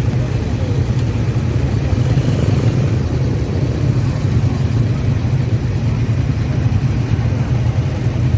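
Slow, congested traffic of three-wheeled mototaxis, motorcycles and cars, their small engines idling and creeping forward in a steady low rumble.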